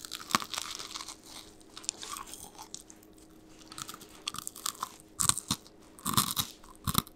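Crispy bungeoppang (Korean fish-shaped bread) crunching close to the microphone as it is bitten and chewed. Its crisp, thin-baked crust crackles in clusters, densest in the first second and again near the end, with a quieter stretch in the middle.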